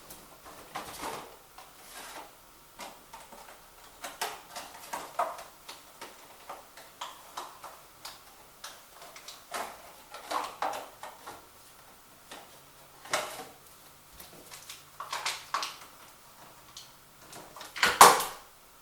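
Objects being handled indoors: a run of irregular knocks, clicks and light clatters, with the loudest clatter near the end.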